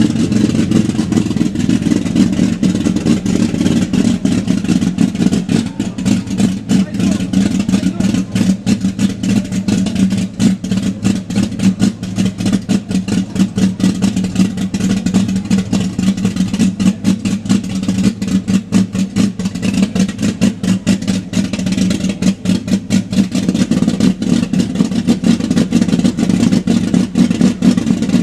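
Chevrolet Opala engine running steadily with a loud, pulsing exhaust rumble, which the owner finds too loud.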